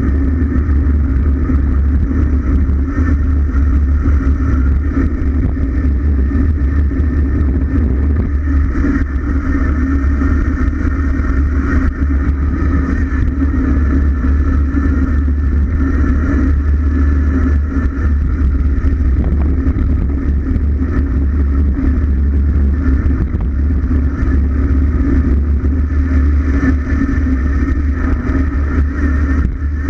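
Wind rushing over the microphone of a bicycle-mounted camera on a fast road descent: a loud, steady rumble with a hiss of the road passing under the tyres.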